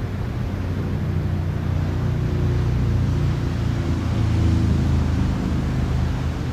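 A low, steady motor rumble with a hum, growing louder about two seconds in and easing off near the end.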